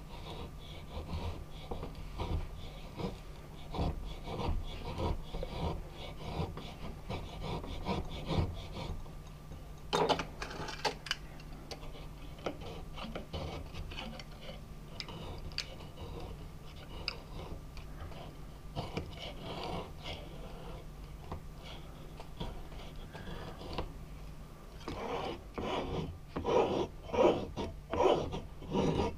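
A knife blade scraping and shaving a wooden handle blank clamped in a vise, in repeated short strokes about two a second. The strokes grow louder near the end.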